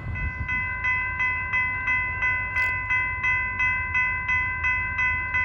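Railroad grade-crossing warning bell ringing, struck about three times a second, each strike ringing on into the next.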